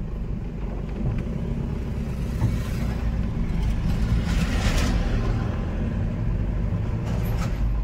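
Steady low engine rumble and road noise of a paddy-laden truck, heard from inside its cab while it drives. A brief rush of hissing noise swells and fades about halfway through.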